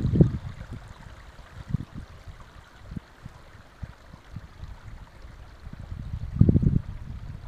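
Wind buffeting the microphone in uneven gusts, loudest at the very start and again about six and a half seconds in, over a faint steady hiss.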